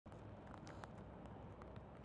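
Faint outdoor street ambience: a low rumble with a few light scattered clicks.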